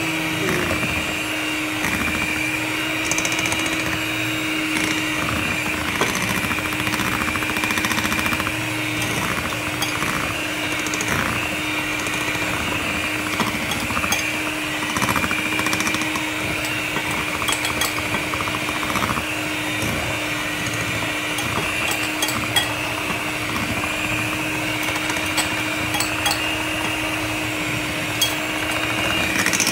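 Electric hand mixer running at a steady speed, its beaters churning thick cake batter in a glass bowl as mashed banana is mixed in. A constant motor hum with occasional light clicks.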